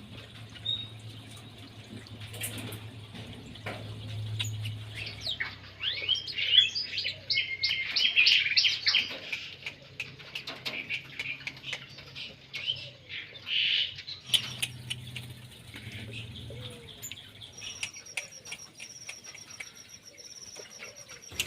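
Small caged songbirds chirping and calling, with a dense, loud run of calls in the middle and a fast, high trill in the last few seconds. A low steady hum lies underneath.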